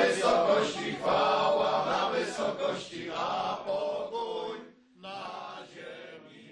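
A group of men singing a Polish Christmas carol together. The singing breaks off briefly about five seconds in, then comes back more quietly and fades near the end.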